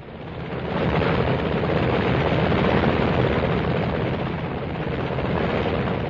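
Helicopter engine and rotor running as it takes off, swelling in over the first second, holding steady, then fading away near the end.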